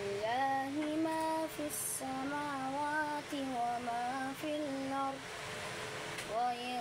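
A boy chanting Quranic recitation in a melodic tajwid style, drawing out long ornamented notes that waver up and down. The voice stops for about a second near the end, then begins the next phrase.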